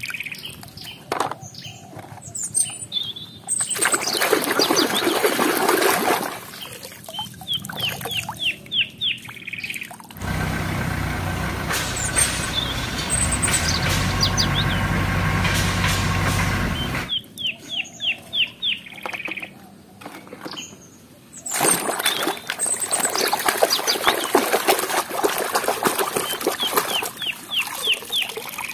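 Water splashing and dribbling off plastic toy vehicles being washed in a tub, with repeated bird chirps. In the middle, a forklift engine runs steadily for about seven seconds before the splashing returns.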